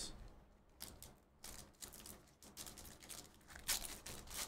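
Trading cards being handled and flipped through: irregular quick rustles and clicks of card stock sliding against card stock and packaging, busier in the second half.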